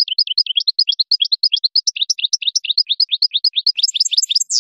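European goldfinch singing: a rapid run of short, downward-sweeping notes, about six or seven a second, quickening and climbing slightly near the end before closing on a falling slur.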